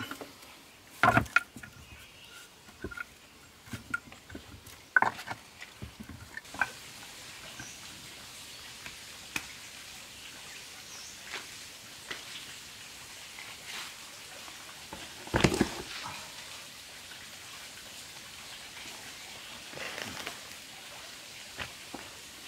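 Stones knocking and scraping against one another and on dirt as rocks are handled and set by hand, with a few sharp knocks, the loudest about fifteen seconds in. A steady background hiss comes in about six seconds in.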